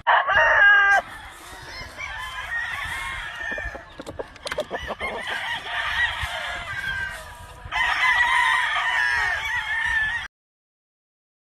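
Several game-fowl roosters crowing over one another, with one loud crow close by at the start and a louder burst of crowing near the end; the sound cuts off suddenly about ten seconds in.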